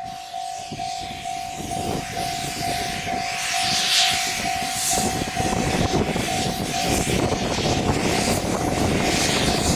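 A steam train passes a level crossing whose warning bell dings in a steady, even rhythm, about three strokes a second. Steam hisses in gusts, and the rumble of the train grows louder about five seconds in.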